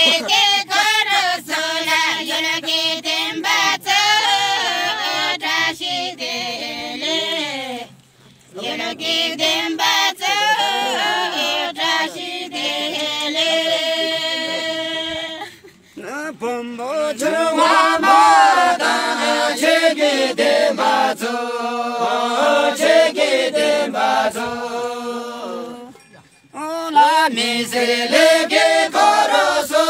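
A group of women and men singing a folk song together in long held phrases, with short breaks between verses about every eight to ten seconds.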